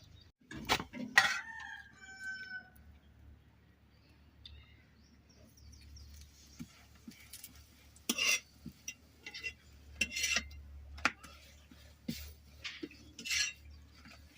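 A rooster crows once about a second in, its call ending in a held note. Later, a few sharp clinks and knocks follow at uneven intervals.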